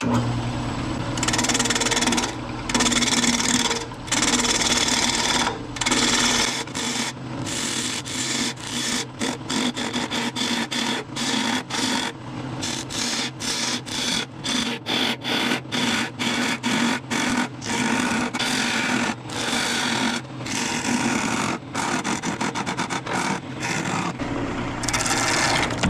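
Wood lathe spinning at about 1,000 RPM, its motor humming steadily, while a gouge hollows a hard cherry bowl blank. The cutting comes in repeated strokes, longer at first and then short and quick.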